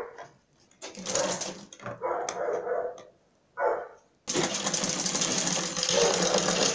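Bulova sewing machine stitching boning onto net fabric: two short bursts of stitching, then a longer steady run of stitching from a little past the middle. Two short, sharp calls, tagged as a dog barking, come right at the start and between the runs.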